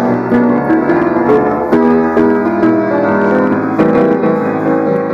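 Grand piano being played: a melody of struck notes over ringing chords, flowing without a break.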